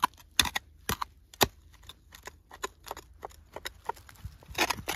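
A hand hoe chopping into red soil, sharp strikes about twice a second. The blows are loudest in the first second and a half, then lighter knocks and scrapes follow, with a cluster of blows near the end.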